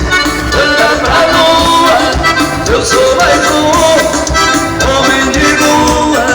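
A live band playing upbeat, accordion-led Latin dance music with a steady beat.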